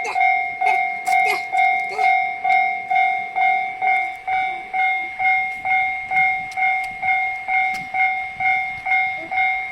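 Japanese railway level-crossing warning bell ringing in a steady, even rhythm, about two strikes a second, each ring fading quickly: the crossing's alarm is active, warning that a train is coming.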